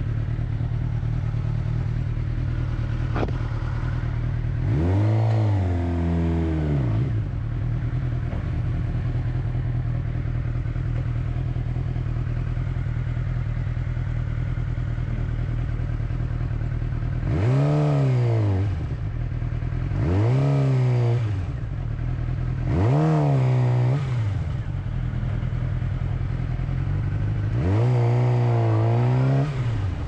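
Sport motorcycle's inline-four engine idling steadily, with five quick throttle blips in which the revs rise and drop back. The last blip, near the end, is held a little longer.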